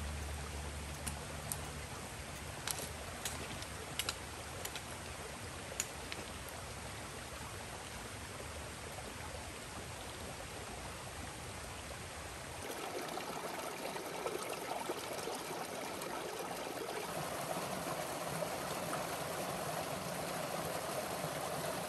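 A small forest creek running over rocks in a little cascade: a steady rush of water that grows louder about halfway through. Before that, a quieter hiss with a few sharp ticks in the first few seconds.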